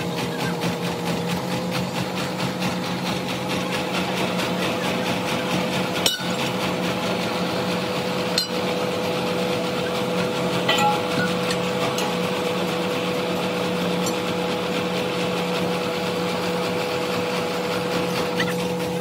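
Dump truck engine running steadily while driving the hydraulic pump that lifts the tipper bed on its hydraulic jack, a constant hum with a steady tone above it. Two short sharp clicks sound about a third and half-way through.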